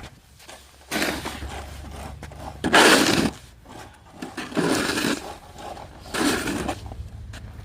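Snow shovel scraping and scooping heavy, sticky snow in four strokes, one about every one and a half seconds, the second the loudest, over a faint low steady rumble.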